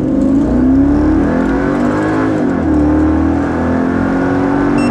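Mercedes-Benz G55 AMG's 5.5-litre supercharged V8 at full throttle on a 0–100 km/h acceleration run, heard from inside the cabin. The engine note rises, drops at an upshift a little over two seconds in, then climbs again.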